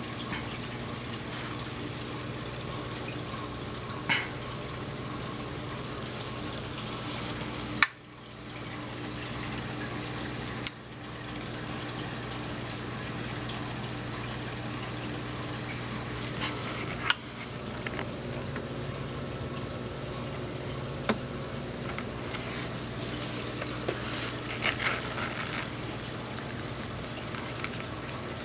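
Saltwater aquarium's water circulation running steadily: trickling, pouring water over a low, steady pump hum. A few sharp clicks stand out, the loudest about eight seconds in and others near eleven and seventeen seconds.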